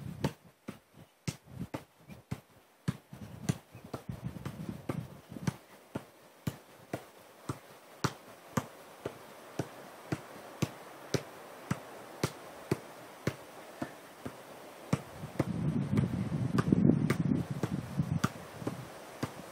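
An Adidas Tango 12 football being juggled on the foot: a steady run of sharp touches, about two a second. A low rumbling noise swells for a few seconds near the end.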